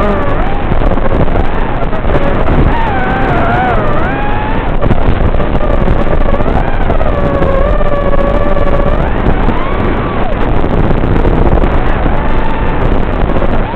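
FPV racing quadcopter's brushless motors and propellers whining, their pitch sweeping up and down with throttle, over heavy rushing wind noise.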